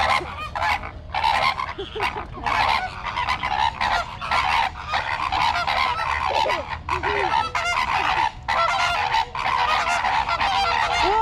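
A flock of flamingos honking, many goose-like calls overlapping in a continuous noisy chorus.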